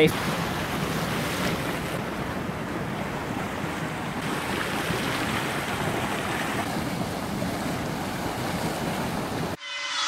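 Boiling geothermal hot spring, a steady rushing hiss of boiling water and venting steam; it cuts off near the end.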